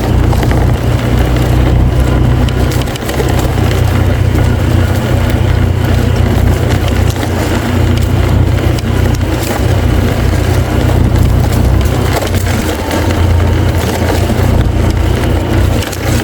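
A motor running steadily under a heavy low rumble, with no change in pace.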